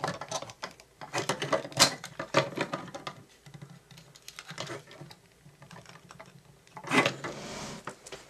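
Small plastic parts of a toy RC spy car being handled: a quick run of light clicks and taps in the first few seconds as a wire is pushed into a little connector, then sparser clicks and a louder scraping rustle near the end.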